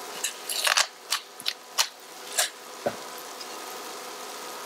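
Seasoning being shaken onto raw halibut fillets: a quick run of short, crisp, scratchy bursts, about seven in the first three seconds, then only a faint steady hiss.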